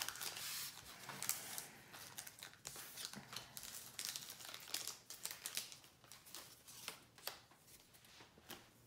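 Foil trading-card booster pack wrappers crinkling and tearing, with cards being handled: quiet, irregular crackles and small clicks.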